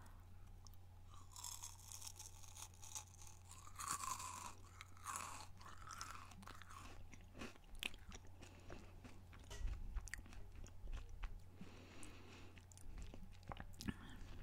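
Close-miked chewing of a crunchy snack: soft crunches with many small wet clicks and smacks of the mouth, over a steady low electrical hum.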